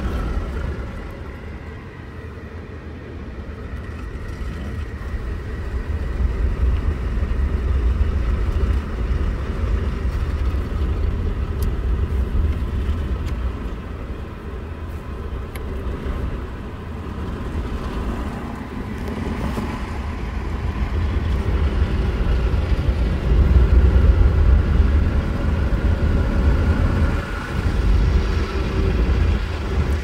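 WashTec touch-free automatic car wash heard from inside the car: a steady low rumble of the machinery and water spraying onto the car. It dips briefly near the start, then grows louder in the second half as the spray hits the car harder.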